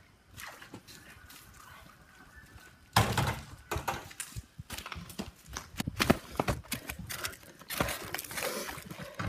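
Quiet for about three seconds, then a sudden jumble of thuds, knocks and rustling from feet on a pool cover and concrete and close movement by the microphone.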